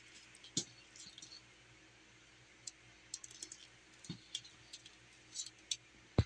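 Black elephant-hide leather gun belt being handled and flexed in the hand: scattered light clicks and creaks of the leather, with one sharp click near the end.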